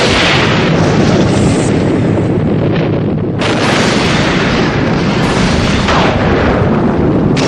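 Loud thunder: a crack that rolls on into a long rumble, with a fresh crack about three and a half seconds in and another just before the end.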